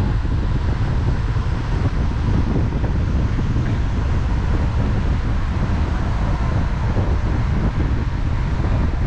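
Wind buffeting the microphone, a dense low rumble under a steady hiss, with the ferry's running noise mixed in.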